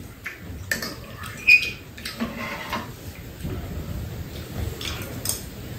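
Metal spoons and chopsticks clinking and scraping against bowls during a meal, with soft eating noises in between. The sharpest clink, with a brief ring, comes about a second and a half in.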